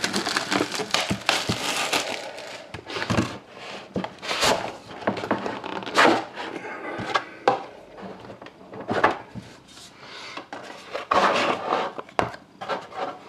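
Plastic shrink wrap crinkling and tearing as it is pulled off a trading-card box, densest in the first couple of seconds. Scattered scrapes and knocks follow as the box is handled on the table and its lid is lifted off near the end.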